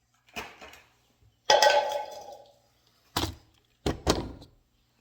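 A few knocks and clunks of things being handled and set down. The loudest comes about a second and a half in and rings briefly like a metal lid or container, followed by two sharper knocks later on.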